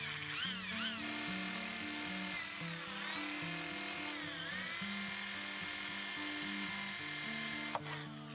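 Electric drill boring a pilot hole in wood: a steady motor whine that dips in pitch several times as the bit loads up, then stops near the end. Background music plays underneath.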